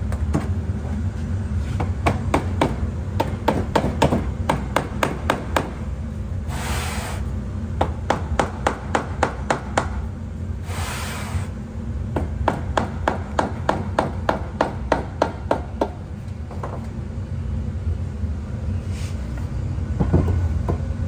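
Small hammer tapping rapidly, several taps a second, on a wooden pattern board to loosen a set sand mould from its pattern, over a steady low machinery hum. There are two short hissing bursts partway through.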